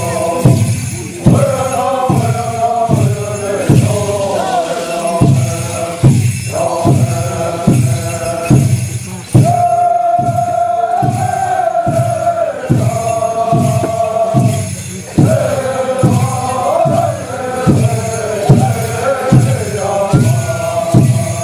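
A chorus of voices chanting in unison over a steady drum beat of about two beats a second: the song that accompanies a deer dance. The singers hold one long note about ten seconds in.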